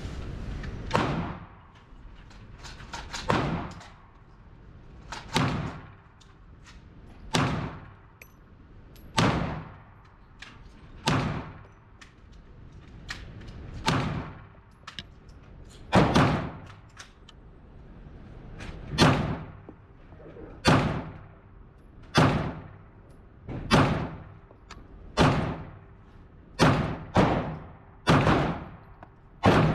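Handgun shots at an indoor range, about one every one and a half to two seconds with a few in quicker succession near the end, each followed by a short echo off the range walls.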